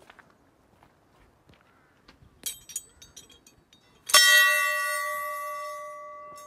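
Large brass temple bell struck once by hand with its hanging clapper, ringing out with several clear tones that fade slowly. A few light metallic clinks come just before the strike.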